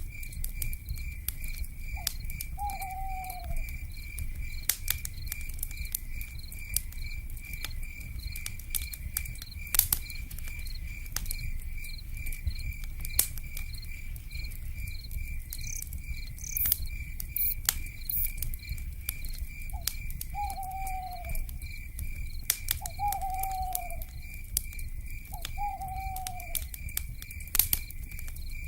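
Wood fire crackling with scattered sharp pops over a low rumble. An insect trills steadily throughout, and an owl hoots once early on and three times in a row near the end, each hoot dipping slightly in pitch.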